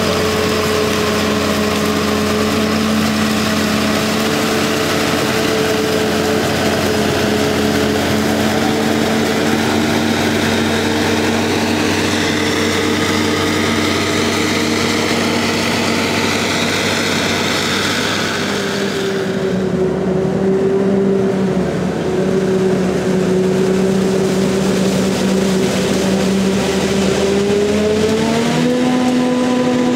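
Heavy diesel farm machinery at work in a maize silage harvest: a forage harvester and tractors running steadily under load. The engine note drops a little about two-thirds of the way through and rises again near the end.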